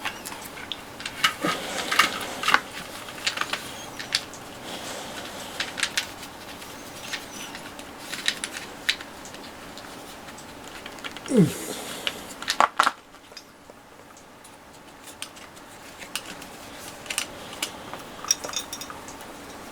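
Scattered light clicks, taps and rustles of gear being handled. There is one short falling squeak about eleven seconds in, and the handling thins out to a few soft clicks after about thirteen seconds.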